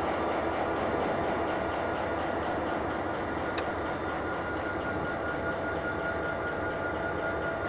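Reading and Northern EMD diesel locomotives rolling slowly past, engines running steadily with a constant whine over the noise of wheels on rail. A single sharp click comes about three and a half seconds in.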